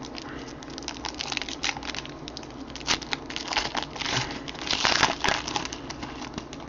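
Trading-card box and pack wrapping being torn open and handled, with irregular crinkling and crackling of the wrapper that grows busiest about three to five seconds in.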